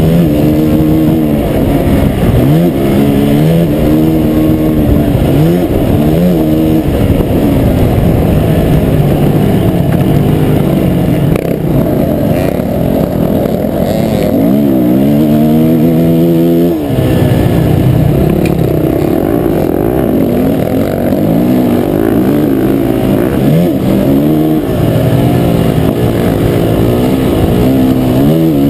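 Dirt bike engine heard from on board, revving up and dropping back over and over as the rider works the throttle and shifts along a motocross track.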